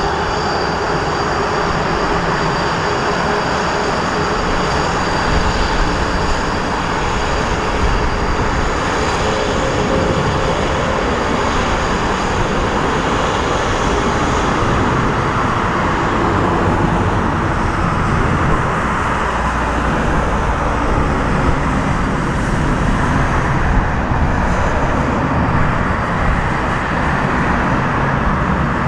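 Boeing 777-200ER jet engines on a landing approach and rollout: a steady, dense jet rumble with a thin high whine that fades out about halfway through.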